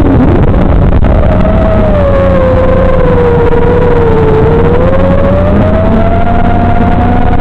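FPV racing quadcopter's brushless motors and propellers whining under throttle, the pitch dropping sharply about the start as the drone flips, then sagging and climbing again through the flight, over a steady hiss.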